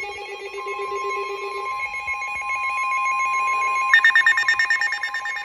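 Several emergency alert receivers sounding their alarm tones at once, for a severe thunderstorm warning. A warbling alert tone and a buzzing pulse are joined about half a second in by a steady high tone typical of a weather radio's warning alarm. About four seconds in, that tone gives way to a fast-pulsing beep.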